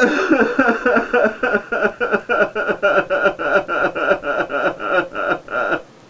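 A man sobbing hard, his voice breaking into rapid, rhythmic pulses about four a second, which cut off suddenly near the end.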